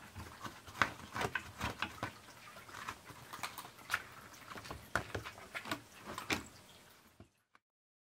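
A kitten rummaging among plastic storage boxes, making irregular light scratching, rustling and tapping. The sounds stop abruptly about seven seconds in.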